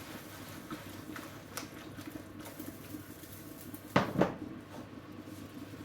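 Pans cooking on the hob: a pot of potatoes boiling fast, with a steady bubbling and many small pops. About four seconds in come two sharp knocks of a utensil against a pan, a quarter-second apart.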